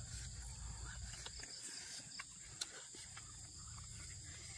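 Steady high drone of night insects, with a few sharp clicks scattered through, the loudest about two and a half seconds in.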